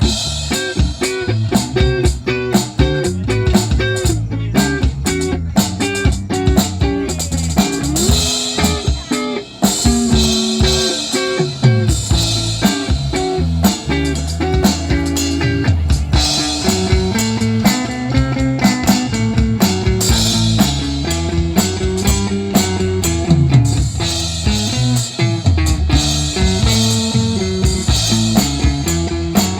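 Rock music played on electric guitar with bass and drum kit, with bending guitar or bass notes over a steady beat.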